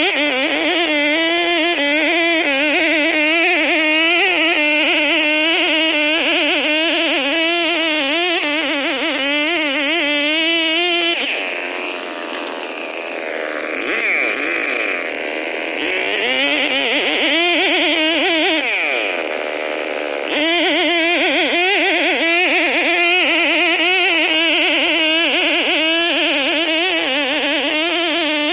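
Stihl 070 two-stroke chainsaw running hard on a long 2.5 m bar, its engine pitch wavering up and down as it works. Around the middle the revs sag and the note changes, then the engine revs back up and runs on as before.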